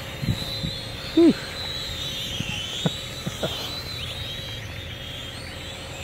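Micro quadcopter's motors and propellers whining high, the pitch wavering up and down as the throttle changes through tight turns, over wind noise on the microphone. A short falling vocal sound about a second in.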